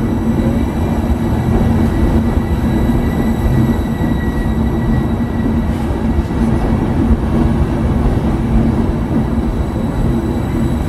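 Trenitalia Intercity passenger coaches rolling past a station platform: a loud, steady rumble of wheels on the rails with a steady low hum underneath.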